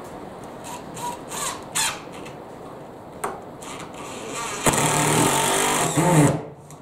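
Cordless drill driving a wood screw into a pine block without a pilot hole: a few short bursts and clicks, then one steady run of about a second and a half near the end that winds down as it stops. Driving the screw in without pre-drilling splits the block.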